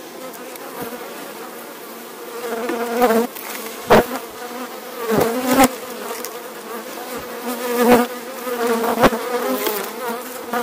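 Honeybees buzzing around an opened hive, the hum wavering up and down in pitch as bees fly close. Several sharp knocks and scrapes of a metal hive tool prying the wooden frames loose cut through it.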